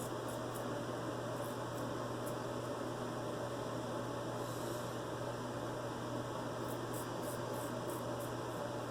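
Vintage George Wostenholm & Sons straight razor scraping through stubble in short, quick strokes, in a few runs, over a steady low hum.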